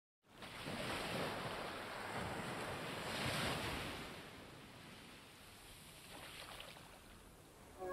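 Ocean waves washing in, a rushing sound that swells about a second in and again around three seconds, then fades away.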